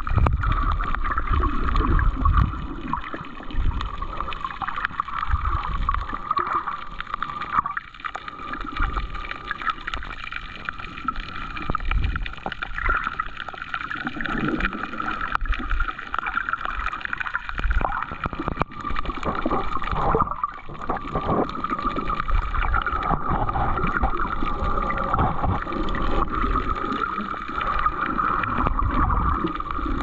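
Muffled underwater sloshing and gurgling of water around a submerged GoPro, with uneven low surges and a steady faint whine beneath.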